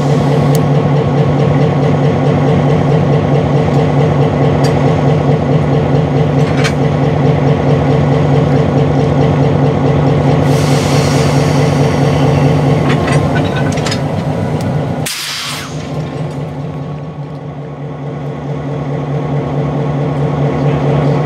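Diesel road-switcher locomotive engine running steadily with a deep, even drone. Compressed air hisses about ten seconds in, and there is a short, sharp blast of air about fifteen seconds in. After the blast the engine sound drops briefly, then builds back up.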